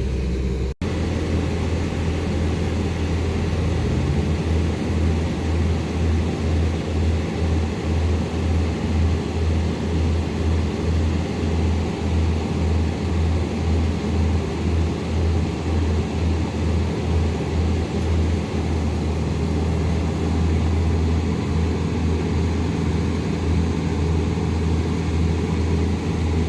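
Excavator diesel engine running hard under load, a heavy low drone that pulses unevenly as the machine works to free a mini excavator stuck in peat. The sound cuts out for an instant just under a second in.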